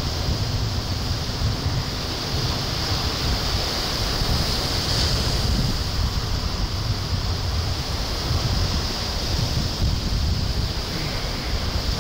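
Wind buffeting the microphone with a steady low rumble, over the constant hiss and wash of small waves on a sandy beach.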